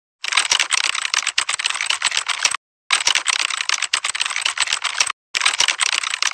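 Typing sound effect: rapid key clicks in three runs of about two seconds each, with short silent breaks between.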